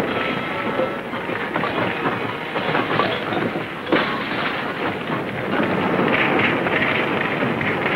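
Wooden house burning: a steady, dense crackle of fire, with two sharper cracks about three and four seconds in.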